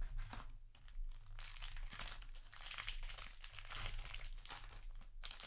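Foil wrapper of a Magic: The Gathering play booster pack crinkling and tearing as it is pulled open by hand, with dense crackling from about a second in until near the end. A light tap at the very start as a stack of cards is set down.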